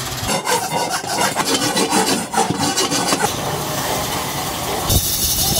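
Irregular rasping and scraping of metal on a large cast aluminium pan. About three seconds in it gives way to a steadier whir as the pan turns on a lathe.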